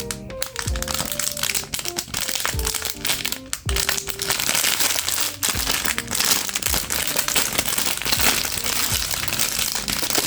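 Packaging being handled and crinkled while a package is unboxed, strongest from about four seconds in, over background music with a steady beat.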